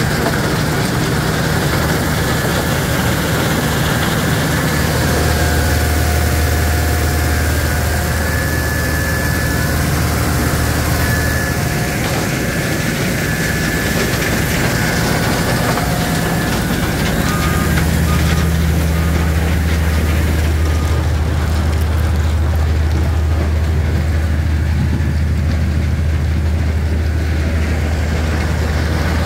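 Powerscreen Chieftain 1400 mobile screening plant running on its Deutz diesel engine while it screens soil and stone: a steady, heavy mechanical drone.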